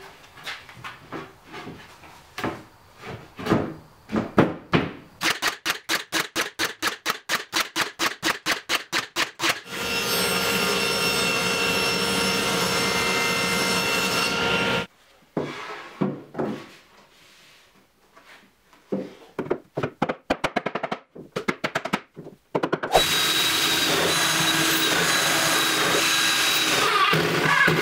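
Woodshop work on plywood: scattered knocks of panels being fitted, then a rapid even run of about twenty sharp clicks. A table saw runs steadily for about five seconds, followed by more knocks and clicks, and near the end a cordless drill runs steadily as it drives screws into the plywood.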